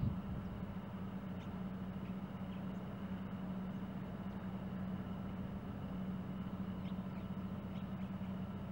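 Beechcraft T-34 Mentor's engine and propeller, a steady distant drone from the aircraft on approach, holding one low pitch and level throughout.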